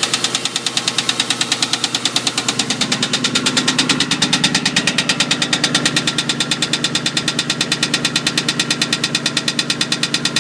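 2001 Ford Mustang GT's 4.6-litre V8 running with a rapid, even knock of about ten strokes a second. The knock is still there after a shop was supposed to fix the engine noise.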